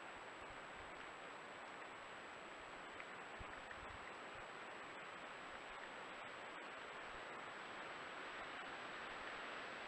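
Steady hiss of a trail camera's built-in microphone, with a thin, steady high tone running through it. A few faint low thumps come about three to four seconds in.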